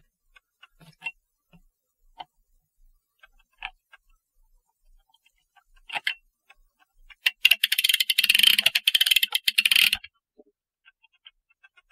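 Clock mainspring winder being worked with gloved hands: scattered light metal clicks and taps, then about seven seconds in a dense run of rapid metallic clicking and rattling for some three seconds, as the tail-less mainspring is worked onto the arbor.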